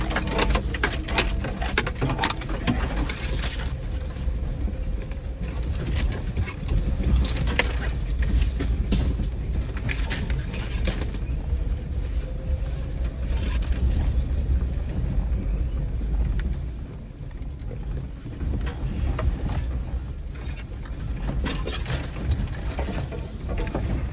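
Off-road vehicle's engine running steadily along a rough wooded trail, with irregular knocks, rattles and scrapes from brush and bumps against the body. The engine eases off briefly about two-thirds of the way through.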